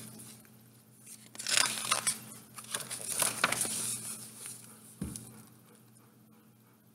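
Page of a large hardcover picture book being turned: paper rustling and sliding for about three seconds, followed by a single soft thump about five seconds in.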